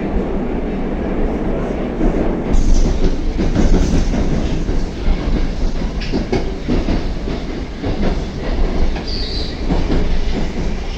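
Moscow Metro train running at speed, heard from inside a car: a steady rumble with rail-joint clacks and knocks, and a brief wheel squeal about nine seconds in.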